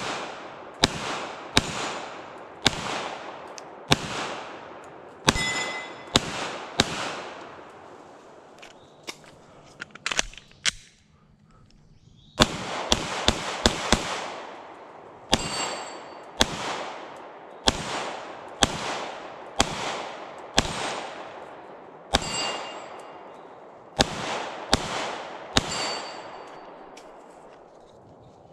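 Glock 19 Gen 4 9mm pistol fired shot after shot, each sharp report trailed by a long echo through the woods, several followed by the ring of a struck metal target. After a short lull about eleven seconds in comes a fast string of shots, then steadier shots about a second apart.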